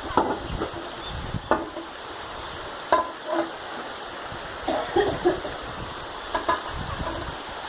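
Steady rain falling, with irregular knocks and taps of drops striking a hard surface.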